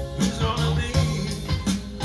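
A song with bass and a steady drum beat, played over hi-fi floor-standing loudspeakers from a vintage stereo receiver and heard in the room.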